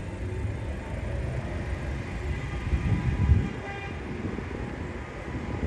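Street traffic: a low rumble that swells as a vehicle passes, loudest about three seconds in, with faint high tones over it.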